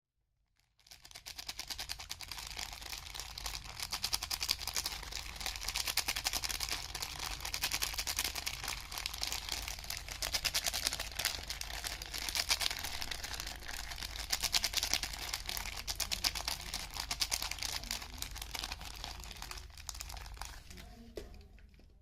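Soap wrapping crinkling continuously as a bar of soap is unwrapped, a dense rapid crackle that swells and eases and fades out near the end, over a faint low hum.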